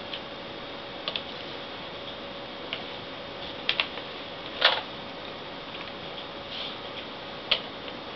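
Scattered light clicks and taps from plastic laptop parts being handled during reassembly, about eight in all, the loudest a little before five seconds in, over a steady hiss with a faint hum.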